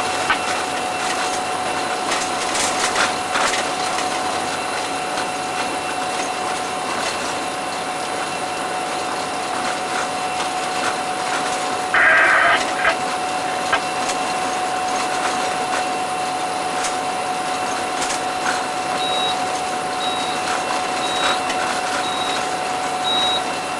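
Cab noise of a running EMD SD40-2 diesel locomotive: a steady drone with a steady whine and a few knocks. There is a brief louder sound about halfway through and five short high beeps about a second apart near the end.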